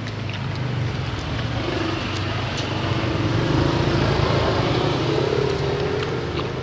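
A motor vehicle's engine passing close by in street traffic. It grows louder toward the middle and eases off near the end, with a low hum and a slowly rising engine note.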